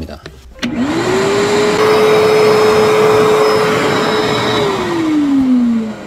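Bosch GAS 10 PS wet/dry extractor's 1100 W suction motor, run in blower mode with the hose in the exhaust port. It is switched on about a second in and spins up with a rising whine, then runs steadily with rushing air. Near the end it is switched off and winds down with a falling whine.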